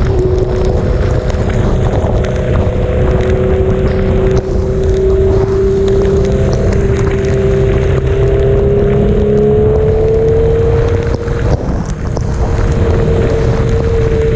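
Sport motorcycle engine running at a steady highway cruise, its revs rising a little about two thirds of the way through, under heavy wind rumble on a helmet-mounted microphone.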